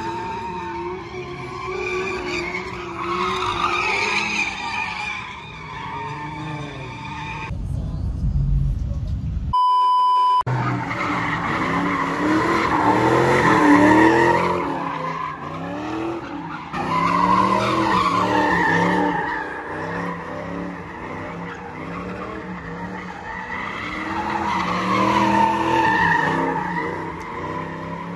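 Cars drifting and doing donuts: engines revving up and down while the tires squeal and skid. About ten seconds in, a steady electronic beep cuts in for just under a second.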